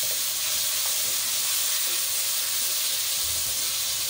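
Onion-tomato masala sizzling steadily in hot oil in a karahi, with a little water just added to it.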